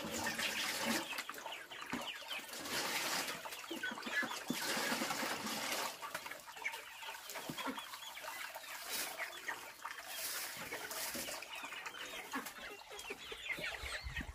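Water poured from a plastic jug splashing into a steel basin, then sloshing as meat is rinsed in a tub of water. Chickens cluck in the background.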